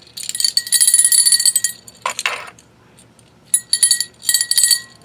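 Small metal cowbells shaken by hand, ringing and jingling rapidly in three bursts: a long shake, then after a pause two shorter ones near the end.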